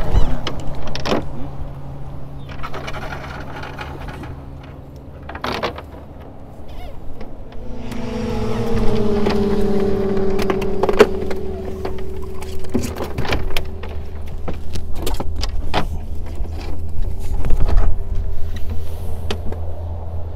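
A boat motor hums steadily at low speed. About eight seconds in, a higher-pitched tone joins it, drops slightly in pitch and then holds steady. Short knocks and clatters come and go as a fishing net and fish are handled on the boat deck.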